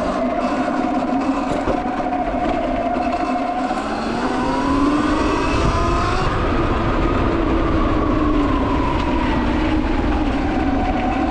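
Sur-Ron Light Bee X electric dirt bike under way: the motor's whine rises in pitch as it speeds up and sinks again later, over a low rumble of wind and knobby tyres on the dirt.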